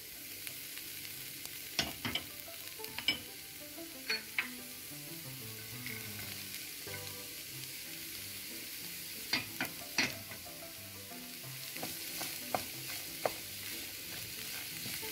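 Diced carrots and snake gourd frying in hot oil in a coated pan, a steady sizzle, while the vegetables are tipped in and stirred with a wooden spatula. Sharp clicks and knocks against the pan are scattered through it, in two clusters a few seconds apart.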